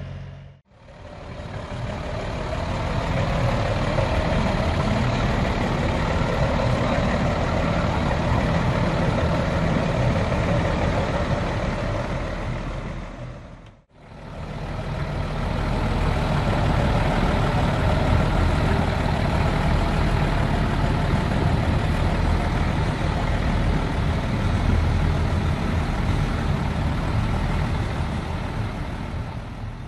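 Large truck engines idling steadily in the open air, a low rumble under a broad noise. The sound dips to silence and fades back in twice, just after the start and about 14 seconds in.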